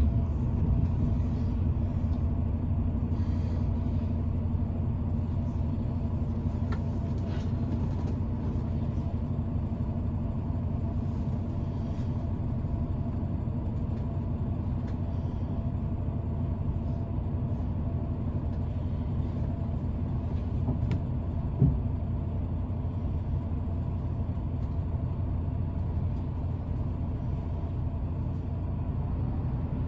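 Steady low rumble with a faint constant hum, and a single short thump about twenty-two seconds in.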